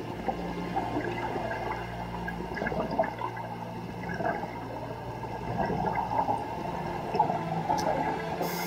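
Scuba diver's exhaled breath bubbling out of the regulator, a long gurgling stream of bubbles, with the hiss of the next inhale through the regulator starting at the very end. A steady low hum runs underneath, the engine noise of motorboats passing overhead.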